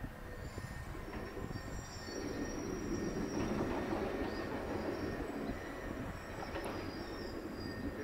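Low, distant rumble of passing traffic, swelling from about two seconds in and easing toward the end, with faint thin high squeals above it.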